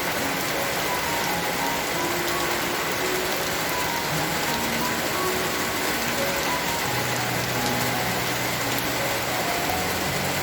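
Steady heavy rain falling, an even hiss throughout, with soft background music of scattered held notes under it.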